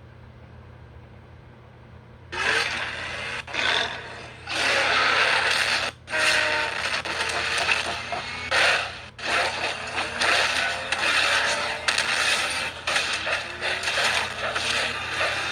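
Film sound effect of the robot Optimus Primal's mechanical body transforming: a dense run of metallic clanking, scraping and ratcheting with short whirring glides, starting about two seconds in over a low steady hum.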